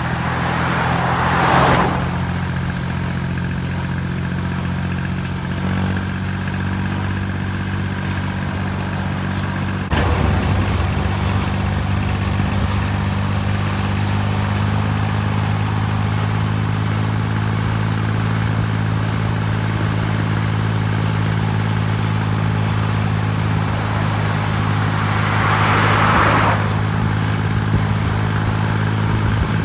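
Kubota L2402DTM tractor's diesel engine running steadily on the road. About ten seconds in, its note shifts and gets louder. Passing cars rush by near the start and again near the end.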